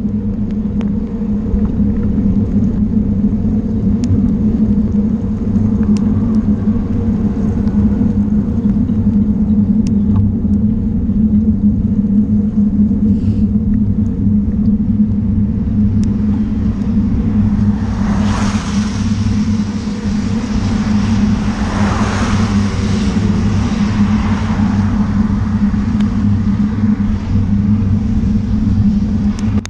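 Steady low rumble of wind and road noise picked up by a camera on a bicycle riding a wet road. About two-thirds through, a car's tyres hiss past on the wet tarmac, rising and then fading over several seconds.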